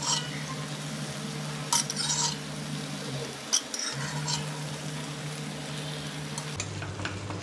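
Beef pieces sizzling in a frying pan as oil is ladled in and a metal spatula stirs them, with a few clinks of the utensils against the pan. A steady low hum runs underneath.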